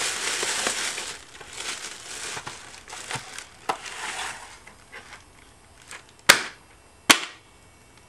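Plastic carrier bag rustling as a ready meal is pulled out, then crinkling and small clicks as its cardboard sleeve and plastic tray are handled, followed by two loud, sharp snaps about a second apart near the end.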